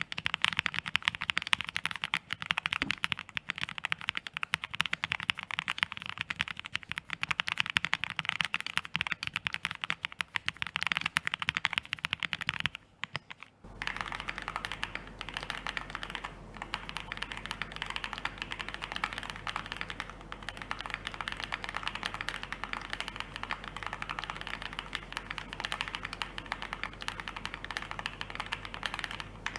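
Velocifire Dolphin 75 keyboard being typed on quickly and continuously, a dense run of key clicks. The typing breaks off briefly about halfway through, then resumes with a low steady hum underneath.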